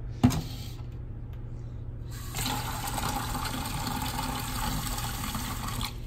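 Kitchen tap water running into a Keurig coffee maker's clear plastic water reservoir, filling it. A sharp click comes just after the start; the water starts about two seconds in and runs steadily until just before the end.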